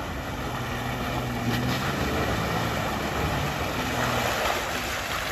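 Jeep Wrangler's engine running steadily under load as it climbs a muddy, rutted dirt trail.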